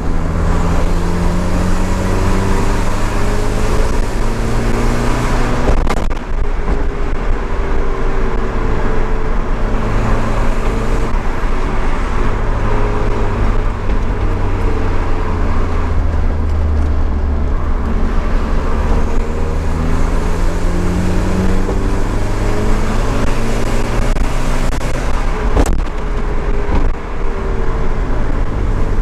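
Nissan 200SX S13's turbocharged CA18DET four-cylinder engine under way on the road, its pitch repeatedly climbing and dropping as it accelerates and lets off. Two sharp clicks stand out, about six seconds in and near the end.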